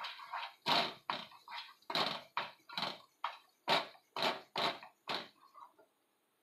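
Wooden spatula scraping and stirring a thick paneer and milk-powder mixture in a nonstick frying pan, about two strokes a second, stopping near the end.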